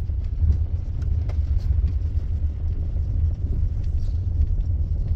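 Steady low road rumble inside a moving car: engine and tyre drone with a few faint rattles.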